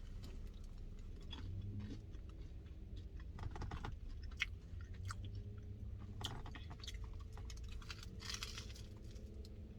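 Close-miked chewing of a grilled mac and cheese sandwich: soft mouth sounds with scattered small clicks and smacks, over a low steady hum.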